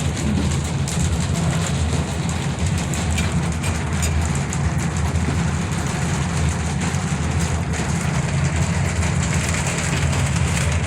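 Heavy rain pelting an aerial tram car in a dense, steady patter over a constant low rumble from the moving car.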